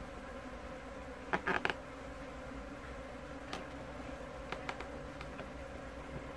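Honeybee colony buzzing steadily around its exposed combs. A quick cluster of sharp knocks comes about a second and a half in, and a few lighter clicks follow later, as the hat and hive box are handled.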